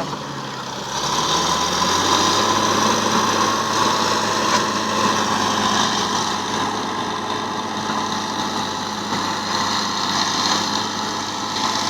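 Fiat-Allis FD14 crawler bulldozer's diesel engine running steadily, growing louder about a second in and then holding level.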